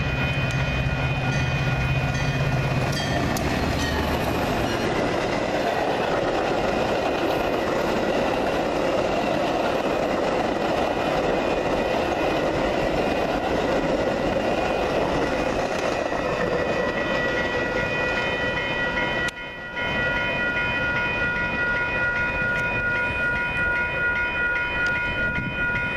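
Metra commuter train of silver bilevel coaches passing, a low engine drone at first, then the rush of wheels on the rails. Grade-crossing warning bells ring over it, taking on a steady repeating pattern near the end.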